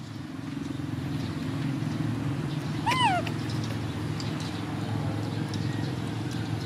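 A baby macaque gives one short squeal that drops quickly in pitch about three seconds in, over a steady low hum.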